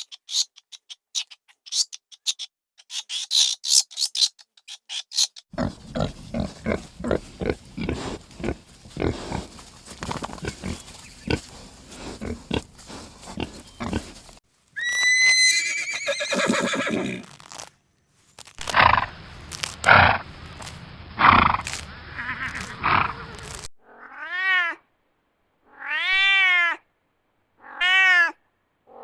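A run of different farm animals' calls in quick succession, ending with a cat meowing three times.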